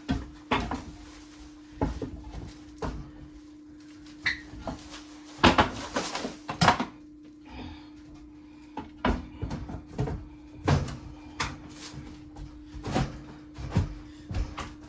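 Irregular knocks and clunks of an over-the-range microwave being handled and fitted up against a kitchen cabinet, hooked onto its wall mounting pegs, the loudest cluster about six seconds in. A steady low hum runs underneath.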